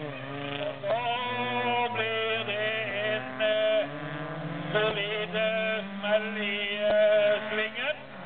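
Several bilcross cars' engines running on the track, revving up and falling back as they shift gears. Their pitches rise and fall over one another above a steadier low drone, with one sharp knock about seven seconds in.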